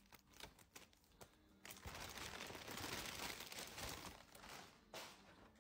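Plastic packaging crinkling and rustling as it is handled. It starts with a few small clicks and taps, then rustles steadily from about two seconds in until near the end.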